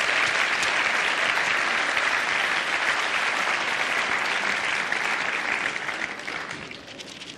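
Studio audience applauding steadily, the applause dying away near the end.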